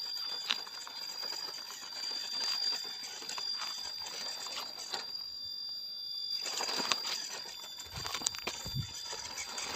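Small RC off-road crawler's tyres crunching and clicking over loose gravel and stones, with low knocks as it climbs over rocks. The crunching stops for about a second a little past halfway. A steady high insect drone runs underneath.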